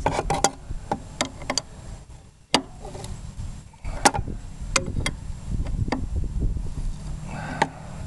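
Sharp, irregular clicks and knocks as the 1968 Volkswagen's 1500 air-cooled flat-four, just freed from being seized, is turned over by hand; it goes about one full revolution and then stops. A low rumble runs underneath.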